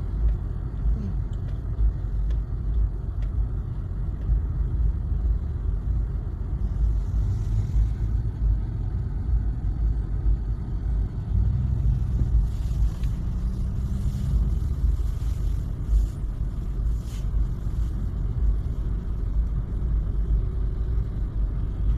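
Car cabin noise while driving: a steady low rumble of engine and tyres heard from inside the car.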